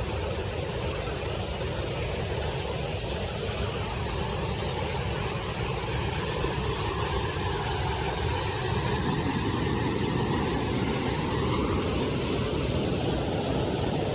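Steady rushing roar of a large waterfall, an even, unbroken noise.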